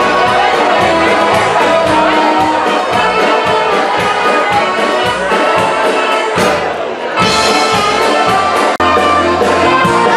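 Live polka band playing loudly through stage loudspeakers: a melody over a steady, even beat.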